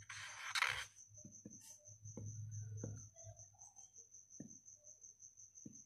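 Marker pen drawing on paper: a short scratchy stroke at the start, then faint squeaks and light taps. A faint steady high whine runs underneath.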